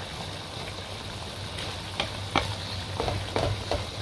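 Sauce bubbling and sizzling in a wok full of chicken and vegetables as it reduces and thickens. A wooden spatula knocks and scrapes against the pan a few times in the second half.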